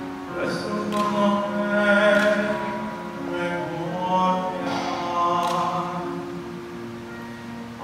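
Male vocalist singing into a handheld microphone, amplified through a PA, holding long notes.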